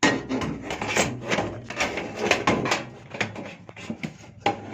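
Irregular knocks, clicks and scrapes of PC hardware being handled in and around a PC case, starting suddenly.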